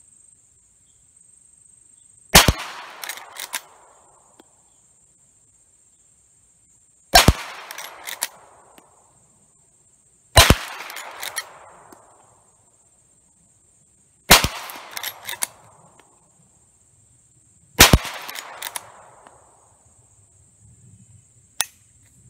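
Five shots from a Rossi R92 lever-action rifle in .357 Magnum firing .38 Special handloads, spaced about three to five seconds apart. Each shot is followed within a second by the quieter clacks of the lever being worked to chamber the next round.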